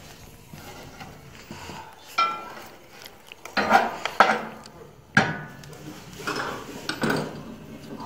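Metal fireplace tools clinking and scraping against a cast-iron wood stove and its grate, with several sharp clanks, the loudest around four seconds in.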